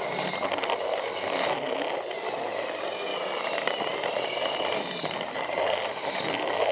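Plarail battery-powered toy train running along plastic track: a steady whir of its small motor and plastic gears, with a faint high gear whine.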